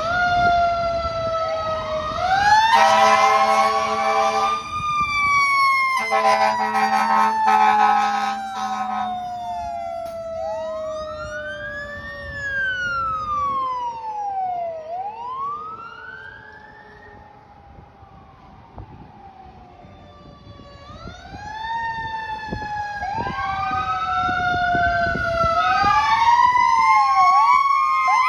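Fire truck sirens wailing: one tone winds slowly down in pitch over many seconds while others rise and fall, building again near the end into a fast warble. Two long air horn blasts sound over them in the first third.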